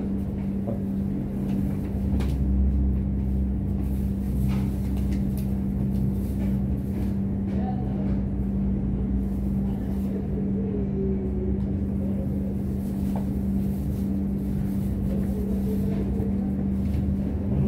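A steady low machine hum with one constant tone, with a few light knocks as a tray and food containers are set down.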